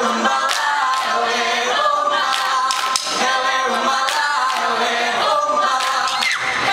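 A group of young voices singing together without instruments, with sharp hand claps and slaps from the seated dancers through the song.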